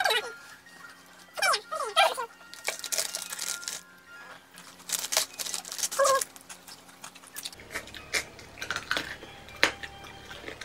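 Plastic snack wrappers crinkling and being torn open, in short rustling bursts, over background music.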